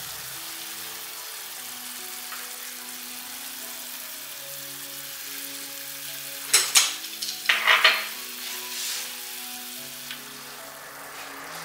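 Broth with vegetables and pork simmering in an aluminium pan on a gas stove: a steady bubbling hiss. About six and a half seconds in come a few loud clatters of utensils against the pan, and near the end the pot is stirred with chopsticks.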